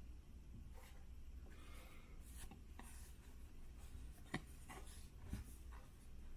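Baseball cards being leafed through by hand: faint rustling and sliding of card stock against card stock, with a couple of light ticks about four and five seconds in.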